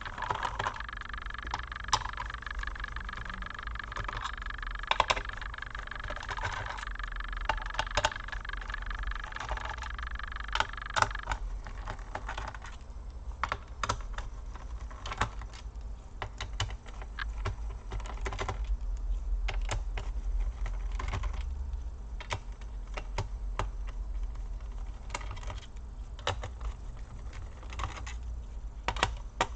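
Small screws being undone from a laptop's plastic bottom case and set down: irregular light clicks and taps of screwdriver, screws and case. A steady high whine sounds alongside for the first eleven seconds or so, then stops.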